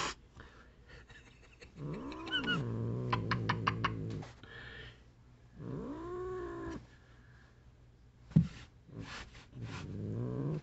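Domestic cat angrily warning someone off: a short hiss at the start, then three long, low yowling growls that rise and fall in pitch. A single sharp knock comes between the second and third.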